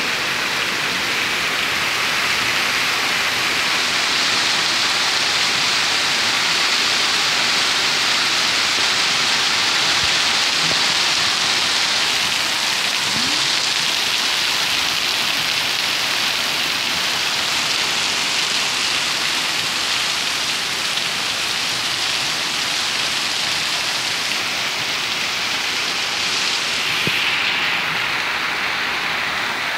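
Steady rain falling on a street, an even hiss with no break.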